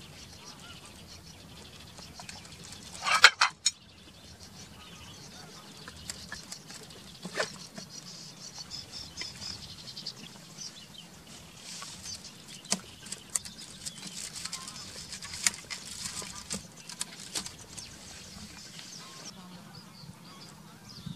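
Scattered clicks and light rattles of a wicker picnic basket being handled: leather straps unbuckled and plates and metal cutlery shifted in their holders, over a low steady hum. A louder short burst comes about three seconds in and cuts off sharply.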